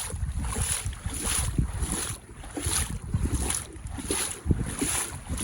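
Water sloshing in a repeating rhythm about twice a second, with wind rumbling on the microphone.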